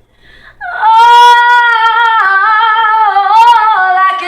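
A woman singing unaccompanied, holding one long note without words and with a slight vibrato. The note steps down in pitch a little after two seconds in.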